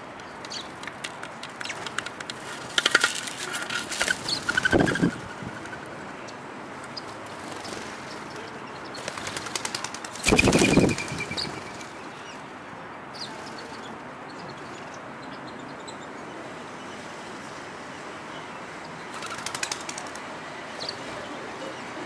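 Collared doves' wings flapping and clattering in several short bursts, the loudest about ten seconds in as they take off from the ledge.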